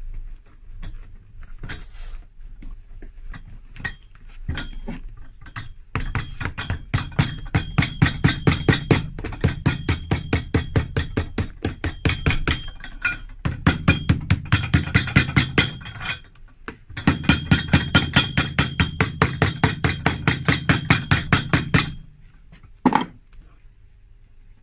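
Hammer beating a new glue-coated leather sole down onto a shoe's welt to bond it: quick even blows about five a second, in three runs with short pauses. The hammering is preceded by soft scuffing as hands press the sole into place.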